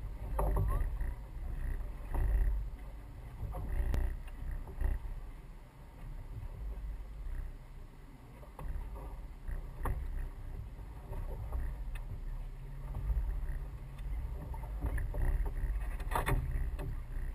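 Fiberglass rowboat being rowed with a pair of oars: a low rumble of hull and water that swells about every two seconds with each stroke, and now and then sharp clicks and knocks from the oars in their oarlocks.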